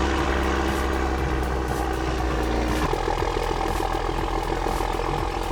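A motor engine running steadily, its note changing about three seconds in.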